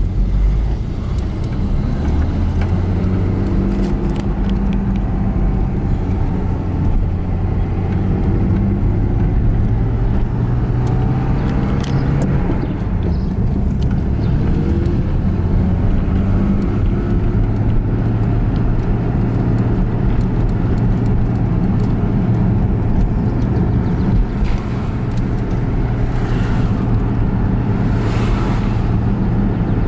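Toyota Cressida on the move, its engine and road noise heard from inside the car. The engine note shifts about twelve seconds in.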